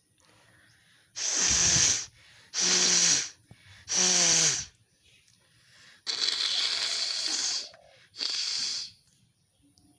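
A person sneezing and blowing hard: five loud, breathy bursts. The first three end in a falling voice, and the fourth, about two thirds of the way in, is the longest.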